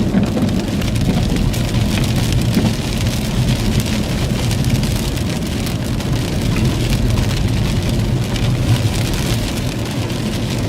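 Icy precipitation pelting the outside of a vehicle, heard from inside the cabin as a dense, steady patter of tiny ticks, over the low steady hum of the idling vehicle.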